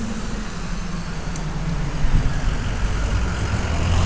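Road vehicles running close by at an intersection: a small SUV's engine, then a pickup truck's deeper engine rumble that grows louder over the last two seconds as the truck approaches.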